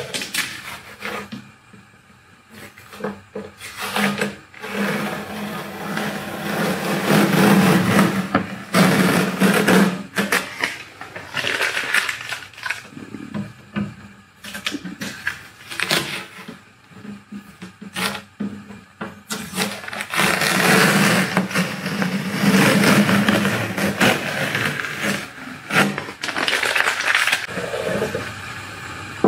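Masking tape being peeled off a painted sidecar tub in several long, rough, tearing pulls.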